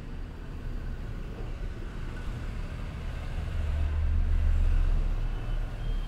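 Low rumble of road traffic, swelling for a second or two about three and a half seconds in as a vehicle passes.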